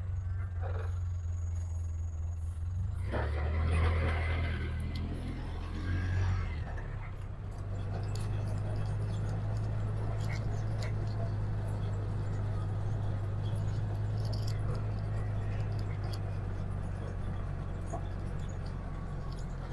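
A vehicle's engine running with a steady low hum, louder for a moment about four seconds in.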